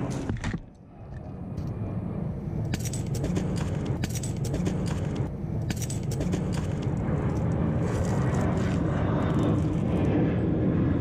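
Motorcycle riding under way, its engine and wind noise running steadily. The sound drops away briefly just under a second in, then builds back up over the next couple of seconds as it picks up. Scattered light clicks or rattles are heard in the middle.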